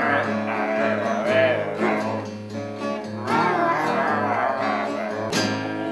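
Acoustic guitar played with a man's voice singing over it.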